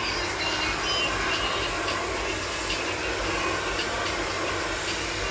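Handheld hair dryer blowing steadily as it dries a head of natural hair: a constant rush of air with a low hum underneath.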